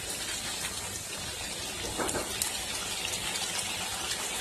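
Chicken curry masala sizzling and bubbling in oil in a nonstick wok on full flame, a steady crackling hiss, while a spatula stirs through it. The yogurt's water has cooked off and the masala is being fried down (bhuna).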